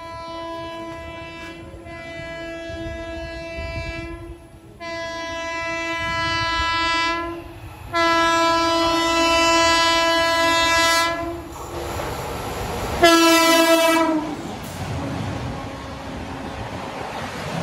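Indian Railways electric locomotive horn sounding a string of long blasts, about four in the first eleven seconds, then one short blast as the train reaches the platform. After that comes the steady rush of the express's coaches passing at speed.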